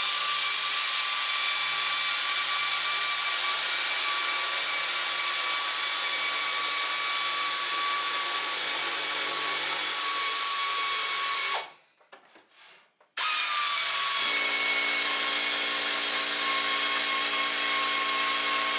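Central Pneumatic air shears running with a steady high whine and a loud hiss of exhaust air while they nibble a curve through Filon fiberglass sheet. They stop for about a second and a half roughly two-thirds of the way through, then start up again and run on until just before the end.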